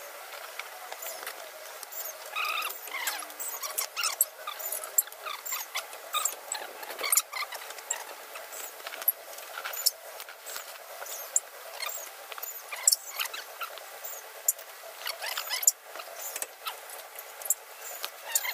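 Irregular sharp metallic clinks and clicks of hand tools, sockets and a breaker bar, handled against each other and the suspension parts, with short high squeaks scattered through.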